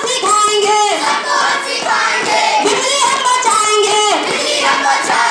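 A group of young voices singing a song together, in unison, with held sung notes.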